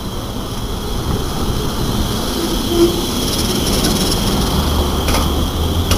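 PCC streetcar passing close by, its wheels running on the rails and its motors rumbling, growing louder as it comes alongside.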